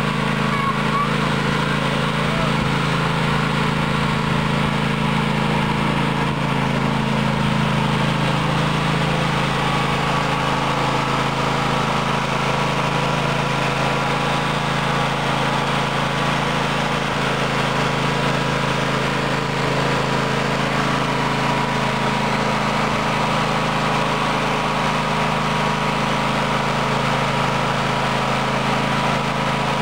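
Toro riding lawn mower's engine running steadily as the mower drives across the lawn.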